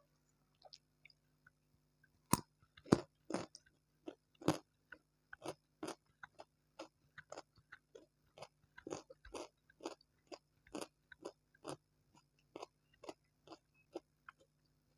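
Close-miked chewing of fried noodles and tempura, with crisp crunches at about two a second and a sharp bite about two seconds in.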